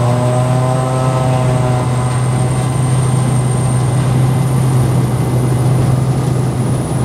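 Cessna light aircraft's engine and propeller running at takeoff power, heard inside the cabin: a loud, steady deep drone with a thin high whine that rises slowly.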